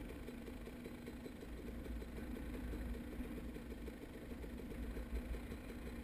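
KTM 300 XC's two-stroke single-cylinder engine running at low, steady revs while the bike rolls along a dirt trail, with a low rumble underneath.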